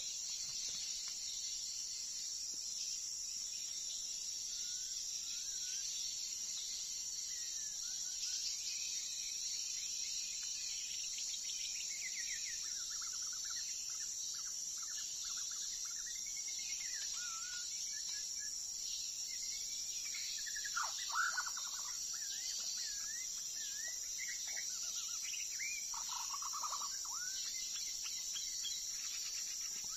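A songbird sings short, varied whistled phrases, starting about a quarter of the way in and growing louder and busier past the middle, over a steady high insect drone.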